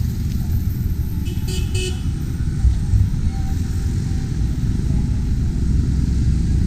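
Street traffic: a steady low rumble of passing vehicles, with a short high-pitched horn toot about a second and a half in.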